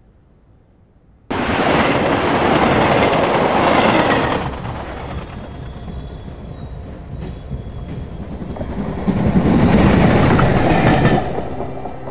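Near silence for about a second, then the noise of a passenger train in motion cuts in suddenly: a loud rumble with a thin high squeal in the middle, swelling again near the end before fading.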